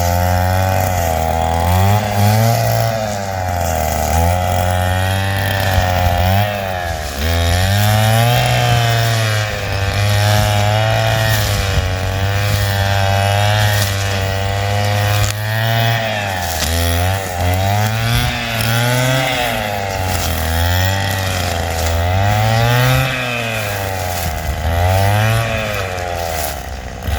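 Stihl FS 160 brush cutter's two-stroke engine running hard, its pitch repeatedly dipping and picking back up as the blade cuts through undergrowth.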